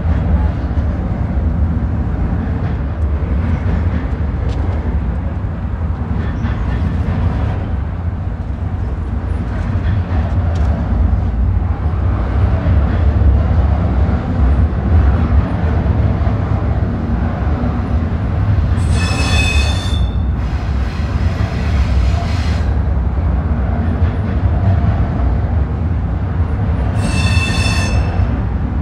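Double-stack intermodal freight train rolling past with a steady low rumble of steel wheels on rail. Two short bursts of high-pitched wheel squeal come about two-thirds of the way through and near the end.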